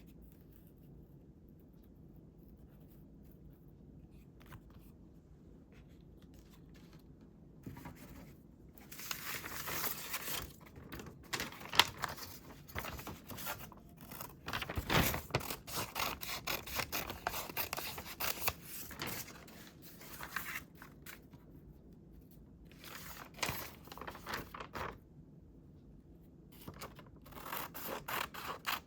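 Scissors cutting paper in several stretches of quick crisp snips, after a quiet first few seconds.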